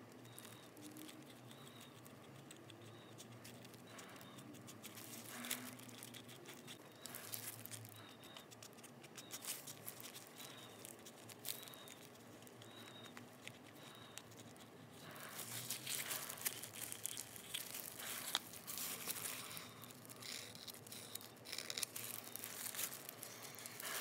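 Scattered light clicks and scraping from a stirring stick and plastic cup as silicone rubber is mixed with its catalyst, busier in the last third.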